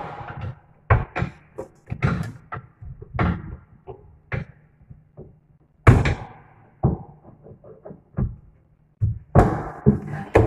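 Irregular metal clunks and knocks of a chrome pull-out corner-shelf basket being fitted into a kitchen corner cabinet, knocking against the cabinet and its mounting; the loudest knock comes about six seconds in.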